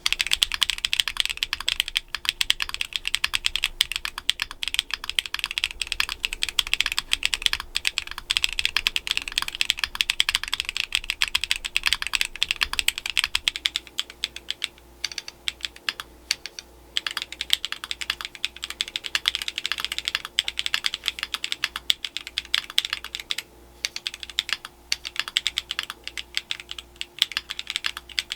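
Continuous fast typing on a stock Akko ACR Pro 75 mechanical keyboard with DSA-profile keycaps: a dense run of clear key strokes, with a few short pauses in the second half.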